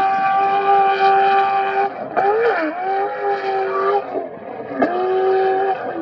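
Off-road race vehicle's engine running at high revs with the throttle held. The revs drop and climb back about two seconds in, and again near five seconds in.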